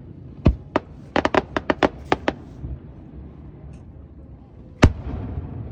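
Aerial fireworks shells bursting: two sharp bangs, then a quick run of about ten pops, then a single loud boom near the end.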